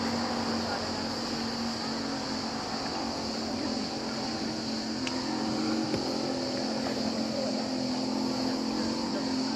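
Steady hum of a tour boat's engine running, with a constant high-pitched hiss over it.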